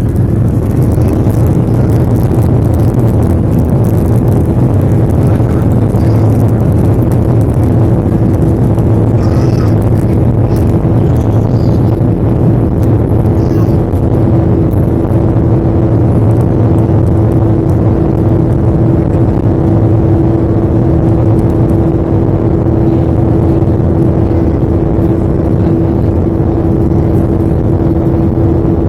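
Airplane engines running loudly and steadily: a constant roar with a steady droning hum that holds without change.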